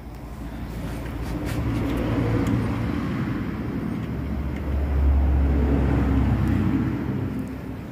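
A motor vehicle passing by: its engine rumble grows louder, swells to its loudest about five seconds in with a strong low note, then fades away.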